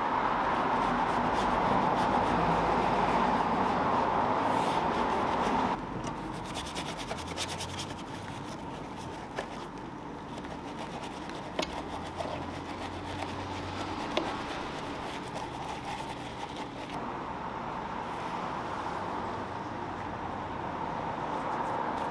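Small detailing brush scrubbing over foam-covered car bodywork, window trim and the fuel filler recess, giving a soft rubbing and scratching with a few light ticks. A steady rushing noise fills the first few seconds and cuts off abruptly about six seconds in.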